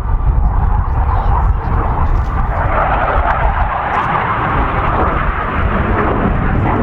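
Hawker Hunter jet's Rolls-Royce Avon turbojet passing during a display, a steady rumble with a rushing roar that swells about two and a half seconds in.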